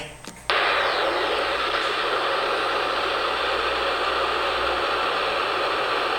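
Steady hiss of FM radio static from an 11-metre receiver, cutting in abruptly about half a second in and holding at an even level.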